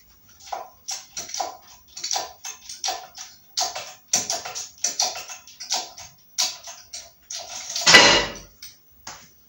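Hydraulic bottle-jack shop press being pumped by hand: a short click-knock on each stroke of the lever, about every two-thirds of a second. About eight seconds in comes one loud metallic bang with ringing, the pressed driveshaft part letting go.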